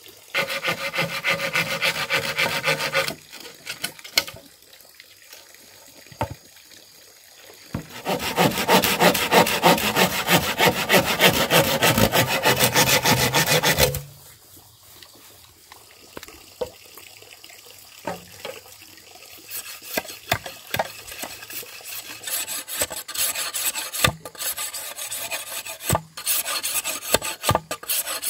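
Rapid rasping strokes of a hand tool working bamboo, in two bursts: one of about three seconds near the start and a longer one of about six seconds in the middle. Scattered light knocks and scrapes follow.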